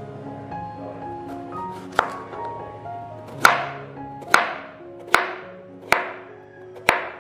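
Chef's knife slicing through a raw chayote and striking the cutting board: six sharp chops about a second apart, starting about two seconds in, over background piano music.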